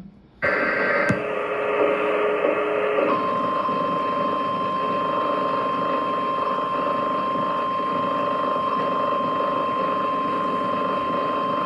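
NOAA Weather Radio warning alarm tone: one steady high beep near 1050 Hz that starts about three seconds in and holds for roughly nine seconds over receiver static. It signals that a warning broadcast is about to follow. The static comes in about half a second in, with a fainter lower tone under it for the first couple of seconds.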